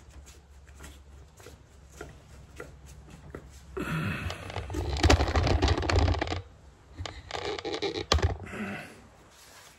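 Hand tools working a tight T10 Torx screw out of the butterfly plate of a seized 2003 Harley-Davidson V-Rod throttle body: bursts of scraping and rattling about four seconds in and again around seven to eight seconds, with a sharp click near eight seconds.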